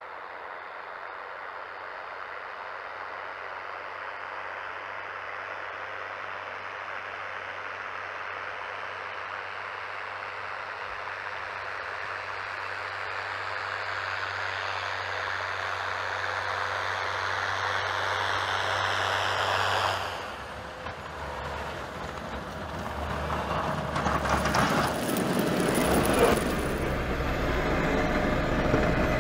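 Tractor engine running while it plows and throws snow, a steady hum under a rushing hiss that slowly grows louder. About twenty seconds in it changes abruptly to a louder, rougher machine and snow noise.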